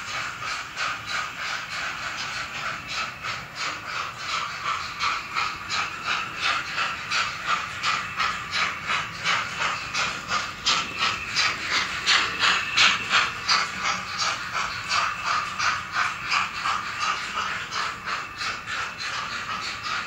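N-scale model train running on the layout: a steady mechanical whirr with even clicking, about three clicks a second, loudest about halfway through.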